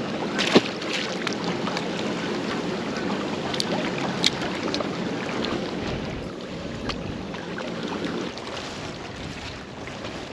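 Strong wind buffeting the microphone over choppy water lapping against a rocky bank, with a sharp click about half a second in and a few fainter clicks later; the wind eases a little near the end.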